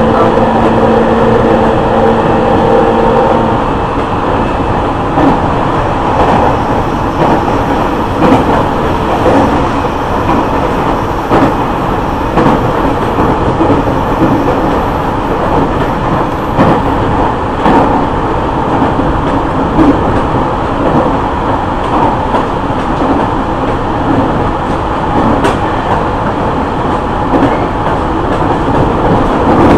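JR East E501 series electric train running at speed, heard inside a motor car at the car end. A steady whine from the Siemens VVVF inverter-driven traction motors cuts off about three and a half seconds in. What remains is the rolling rumble of wheels on rail, with irregular clicks over the rail joints.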